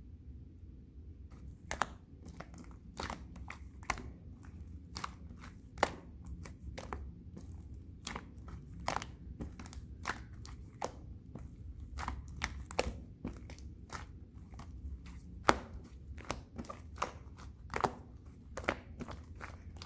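Slime being pressed and squished by hand, giving sharp, irregular clicks and pops a few times a second, starting about a second in, over a low steady hum.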